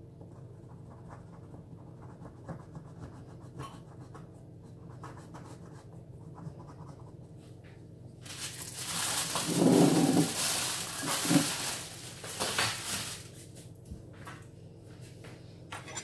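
Knife scratching and ticking as it cuts through layered filo pastry in a metal baking tray. About eight seconds in, a louder rushing noise with a few dull thumps comes in for some five seconds.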